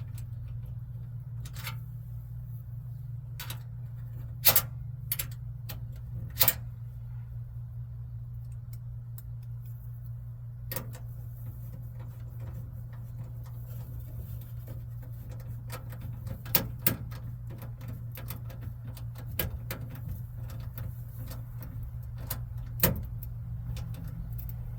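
Scattered clicks and taps of small hardware being handled and fitted on a car door by hand, about ten sharp ones spread irregularly through the stretch, over a steady low hum.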